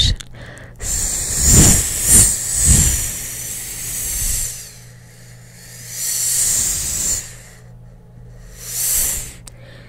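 Hissing close to the microphone in three long swells, the first and longest carrying three low thuds like puffs of air on the mic.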